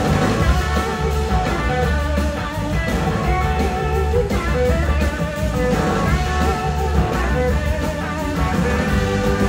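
Live blues-rock band: an electric guitar plays a lead of long, wavering sustained notes over bass and drums.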